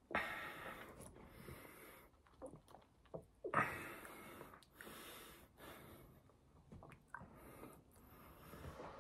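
A person eating, breathing loudly through the nose close to the microphone: two strong breaths, one right at the start and one about three and a half seconds in, with softer breaths and small mouth clicks between.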